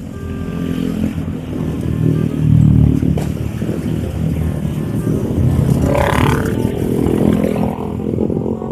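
Motorcycle engine running and building revs as the bike pulls away. The sound gets louder over the first few seconds, with a short higher-pitched sound about six seconds in.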